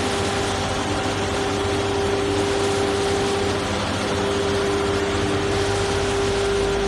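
GAOBAO WZFQ-1600A high-speed paper slitting machine running, with paper web feeding through its rollers: a steady mechanical rushing hum with one constant whining tone over it.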